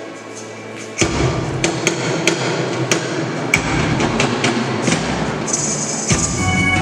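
Live choir concert sound: about a second in it turns sharply louder, with a run of irregular percussive thumps over a dense din. Near the end, steady musical tones join in.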